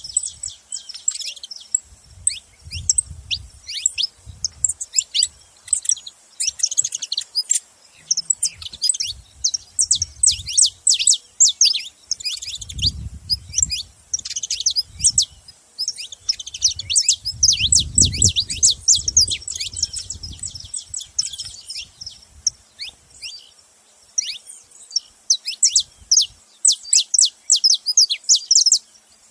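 Saffron finch calling and singing in rapid runs of high, sharp chirps, with short pauses between bursts. A few soft low rumbles or thumps sit underneath.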